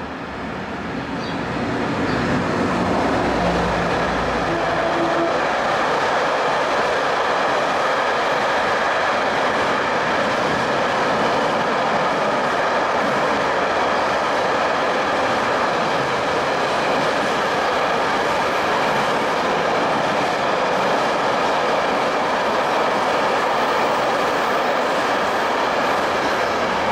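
Long freight train of empty flat wagons, hauled by an electric locomotive, rolling past at close range: a steady rumble and rattle of wheels on rails. It swells over the first two seconds as the locomotive goes by.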